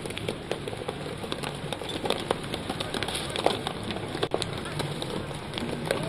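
Glass liquor bottles cracking and crunching under the steel drum of a road roller, many sharp cracks in quick irregular succession over the steady running of the roller's engine.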